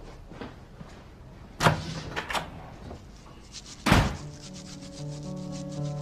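A door shutting with a sharp thud about four seconds in, after a couple of softer knocks. Then quick, even scrubbing strokes of a toothbrush on teeth, while soft music with held notes comes in.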